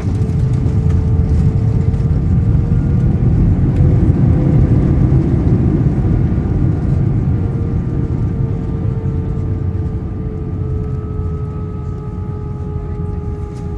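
Airliner on landing, heard from inside the cabin: a loud low rumble of engines and airflow with faint steady engine whine tones. It swells for about five seconds, then slowly eases off.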